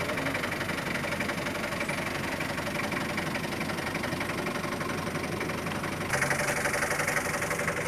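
An engine idling steadily with an even, rapid ticking, growing a little louder about six seconds in.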